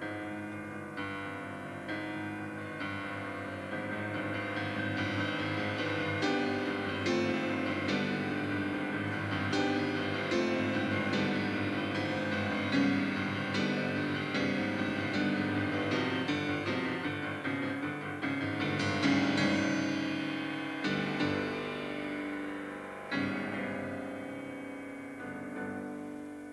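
Solo concert grand piano played live: a dense passage of many struck notes that grows louder over the first several seconds, with heavy accented chords about 19 and 23 seconds in, then thins out and softens near the end.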